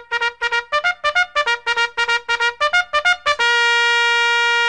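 Intro music: a brassy, trumpet-like fanfare of quick staccato notes, about four a second, ending in one long held note about three and a half seconds in.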